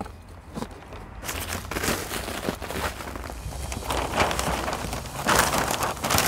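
Compost being scooped and spread with a metal hand scoop over brown kraft paper: irregular crumbly scattering and scraping on the paper, with paper crinkling.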